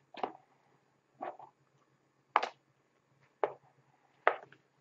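A trading-card box and its packaging being handled and opened by hand: five short scrapes and clicks, about a second apart.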